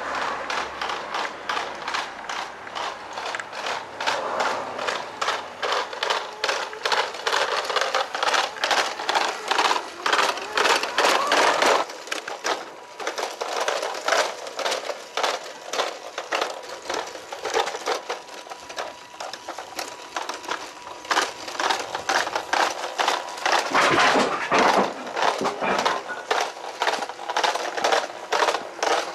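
Small radio-controlled Hymer motorhome model driving along, its electric drive and plastic gearbox giving a rapid, rhythmic mechanical clicking.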